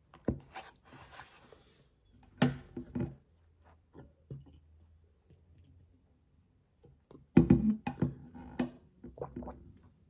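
Objects being handled on a desk in a small room: a run of knocks and thumps in two clusters, a few near the start and more from about seven seconds in, with some light rustling between.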